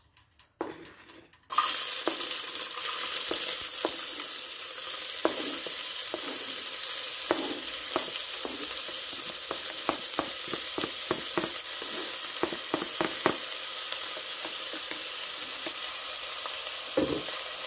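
Chopped onion dropping into hot oil in a preheated pressure cooker and sizzling: the frying hiss starts suddenly about a second and a half in and holds steady. Over it come light knocks and scrapes as a wooden spoon pushes more onion off a cutting board into the pot.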